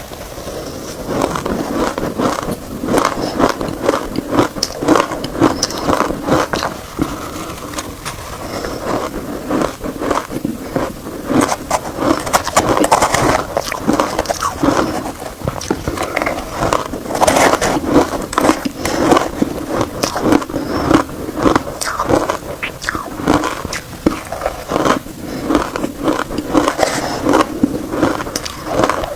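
Shaved ice loaded with matcha being bitten and chewed, a dense, irregular run of crisp crunches.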